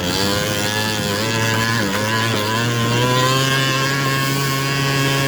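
70cc big-bore two-stroke scooter engine running steadily at high revs while riding, with a brief dip in revs about two seconds in and a slow rise in pitch after it.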